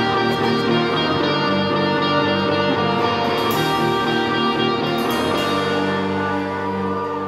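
A rock band playing live without vocals: electric guitars, bass guitar and drum kit together, with cymbal crashes in the first half. About five seconds in, the cymbals stop and the band settles into held, ringing chords.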